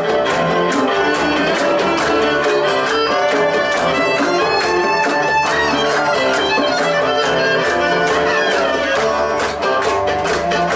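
Live folk band playing an instrumental passage: a fiddle carries the lead over strummed acoustic guitar and a steady beat of hand drum and drum kit.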